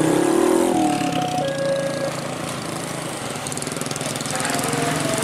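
Railway level-crossing warning alarm sounding its alternating two-tone signal, stopping about two seconds in as the barrier lifts. Several small motorcycle engines run under it, and they rev up near the end as the riders cross the tracks.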